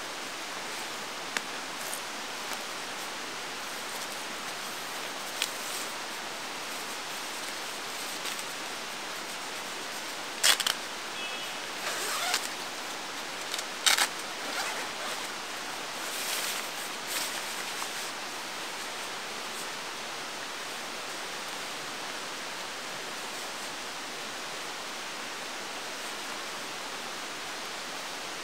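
Nylon dome tent being handled and set up: short rustles and sharp clicks, clustered between about ten and eighteen seconds in, over a steady, even hiss.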